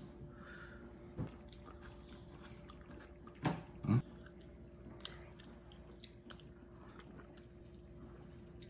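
A person eating soup: soft chewing, with a few short knocks of a metal spoon against a ceramic bowl, the two loudest about half a second apart near the middle.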